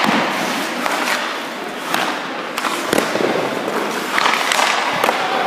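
Ice hockey goalie's skate blades scraping the ice as he pushes and slides across the crease, with sharp echoing knocks about once a second.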